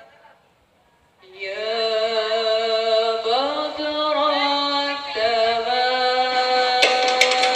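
A woman's voice singing a slow hadroh devotional melody without accompaniment, long held notes sliding between pitches, resuming after about a second's pause. Near the end the rebana frame drums come in with sharp strikes.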